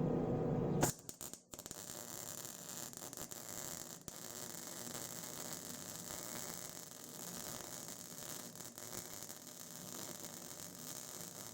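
MIG welding arc crackling steadily as a bead is laid on a steel mower frame, starting about a second in after a louder low hum cuts off. The weld is being run without shielding gas, which makes it an improper weld.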